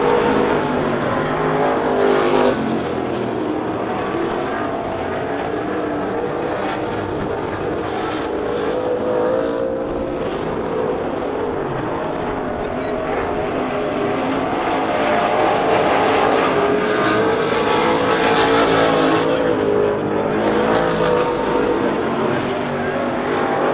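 Dirt-track superstock race cars' engines running and revving, several at once, rising and falling in pitch as they pass on the track and pull into the pits.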